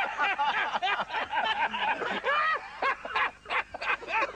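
Voices talking and laughing, with no clear words.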